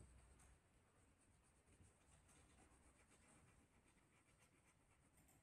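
Near silence: faint room tone with a few faint ticks and light scrapes, loudest at the start, as coloured pencils are picked up off the tabletop.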